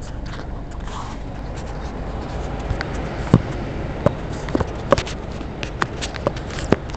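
Camera handling noise as the camera is fitted against a car's body: fingers rubbing and tapping on it, giving a run of sharp clicks and knocks over a steady low rumble, most of them in the second half.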